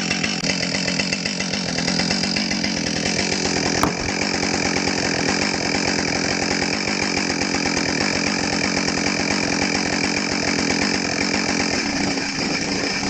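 Two-stroke Husqvarna chainsaw engine idling steadily, with a single sharp click about four seconds in.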